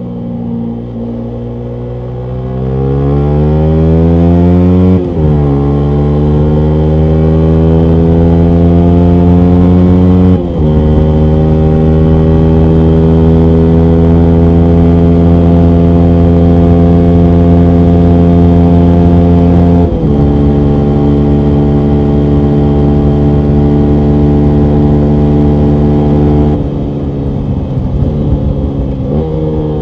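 2019 Yamaha MT125's single-cylinder four-stroke engine through a full Akrapovic exhaust, accelerating through the gears: the pitch climbs and drops sharply at upshifts about five, ten and twenty seconds in, then holds steady. Near the end the throttle closes and the engine falls back to a lower, uneven note as the bike slows.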